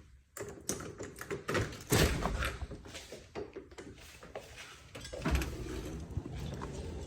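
A door being opened and passed through: a run of irregular clicks and knocks from the latch and handling, with a louder thump about two seconds in and another about five seconds in, then a steady background noise.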